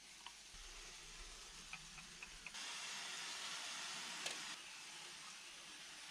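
Pump-action hand pressure sprayer misting water onto a wall to wet it for lime render: a few light clicks, then a steady hiss of spray for about two seconds, starting about two and a half seconds in.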